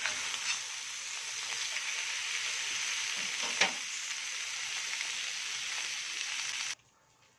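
Bacon-wrapped beef tenderloin steaks sizzling steadily in a hot grill pan, with a single sharp clack about three and a half seconds in. The sizzle stops abruptly near the end.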